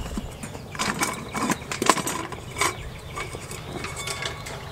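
Metal tongs and a wire lid lifter clinking and scraping against a stainless steel pot lid as it is worked loose and lifted off: a handful of separate sharp metallic clicks and clanks.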